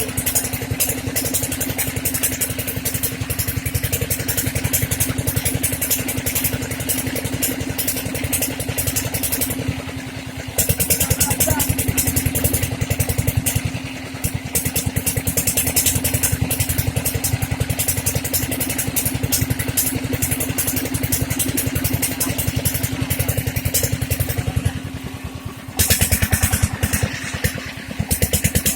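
Single-cylinder Dongfeng diesel engine running steadily, with a fast, even firing beat.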